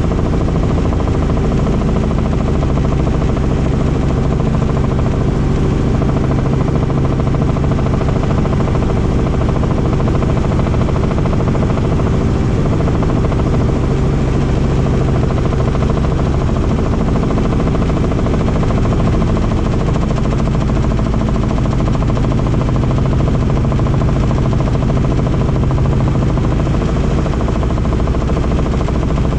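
Helicopter in flight, its rotor and engine running steadily and loudly, with a fast, even beat from the blades.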